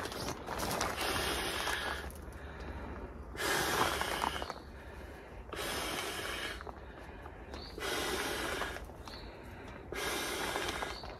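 A man blowing up an inflatable sleeping pad by mouth: long, strong breaths into the valve about every two seconds, with quieter breaths in between.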